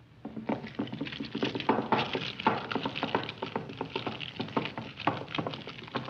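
Film sound effect of a bird eating through the wooden spokes of a wagon wheel: a fast, irregular run of crunches and clicks that begins just after the start.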